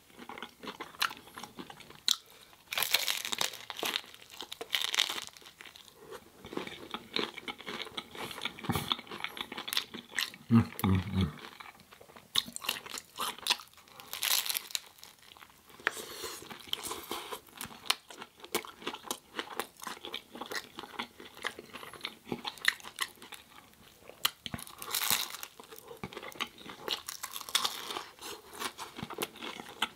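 A person chewing and crunching mouthfuls of food close to the microphone: many small, irregular crunches and wet mouth clicks.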